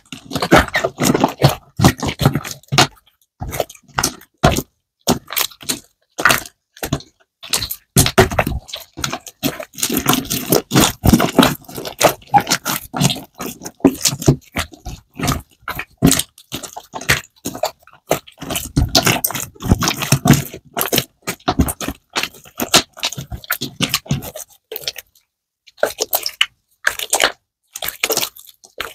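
Clear glitter slime with small beads in it being squeezed, stretched and folded by hand, making irregular sticky pops, clicks and squelches, with a short pause near the end.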